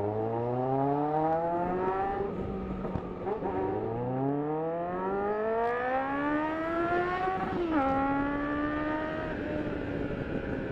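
Yamaha XJ6's inline-four engine accelerating through the gears: the revs climb, break off at an upshift about two seconds in, climb again for several seconds, then drop sharply at another upshift and hold nearly steady.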